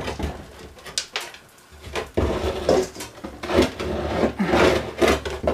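Workshop handling noise: a string of knocks, clunks and scrapes, metal against a wooden bench, as a steel lawnmower deck is shifted and propped up with a hammer. Single sharp knocks come about a second apart at first, then a busier run of clatter and scraping from about two seconds in.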